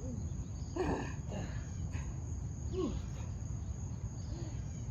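Quiet background during a plank hold: a steady high-pitched whine over a low rumble, with a few faint short vocal sounds about a second in and near three seconds.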